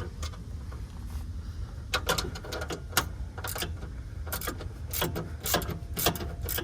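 Ratchet wrench clicking in short strokes as it loosens a 13 mm bolt on a car's gear shifter base. A run of sharp, irregular clicks starts about two seconds in.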